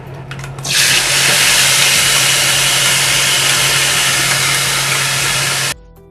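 A wet tomato-and-nut paste hitting hot refined oil in a kadai and sizzling loudly and steadily. It starts suddenly about a second in and cuts off abruptly just before the end, over a steady low hum.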